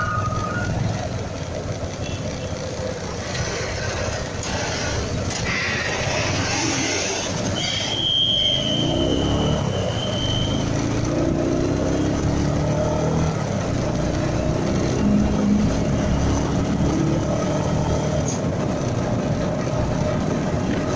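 A motorcycle engine running and road noise while riding through truck traffic, the engine pitch rising and falling with the throttle. A truck's reversing beeps sound at the very start, hissing bursts come around four to seven seconds in, and a high steady tone is held for about two and a half seconds from about eight seconds in.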